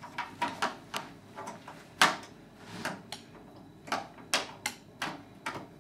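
Irregular clicks and taps of small lock hardware being handled and worked on the edge of a sliding patio door sash, with one sharper knock about two seconds in.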